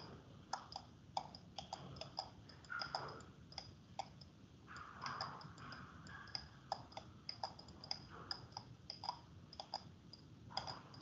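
Faint, irregular clicking, several clicks a second, from a computer pointing device as handwriting is drawn stroke by stroke on screen.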